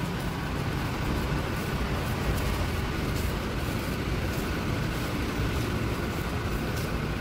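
Steady low rumbling background noise of a parking garage, with faint, regular footsteps.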